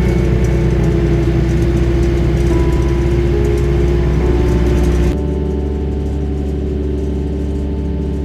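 Background music of sustained, slowly changing synth chords over a deep low drone. About five seconds in the sound changes abruptly and the bright upper part drops away.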